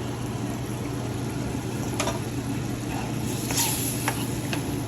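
A few light clicks and taps of a spoon against a cooking pot, over a steady low hum.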